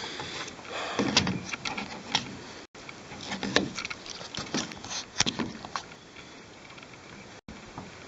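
Irregular knocks, rattles and scrapes of hands handling parts inside an opened Miele washing machine, around its drum motor and cables.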